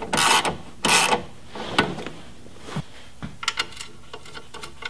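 Socket ratchet driving bolts: two loud bursts of rapid ratchet clicking in the first second or so, then lighter, scattered clicks from about three and a half seconds in.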